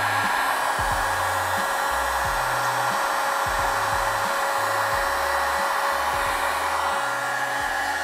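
Electric heat gun running steadily, a whoosh of blown air with a faint whine, shrinking heat-shrink tubing over a soldered wire joint.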